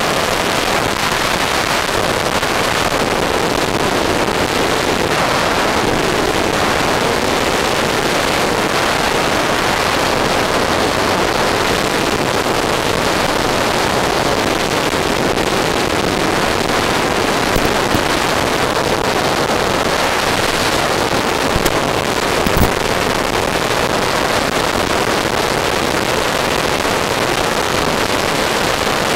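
Steady loud hiss and rush with no engine tone, the in-flight audio of an RC plane's FPV camera feed, broken by a few sharp crackles past the middle.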